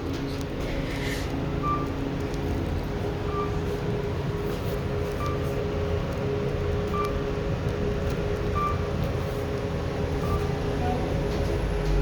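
Elevator car travelling upward: a steady hum and rumble of the moving car, with a short high beep repeating about every second and a half to two seconds, as it passes floors.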